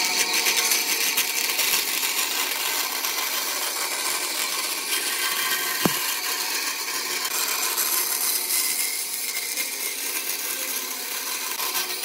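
Band saw running and cutting a curve through a thin wooden board, a steady hissing whir throughout, with one short sharp tick about six seconds in.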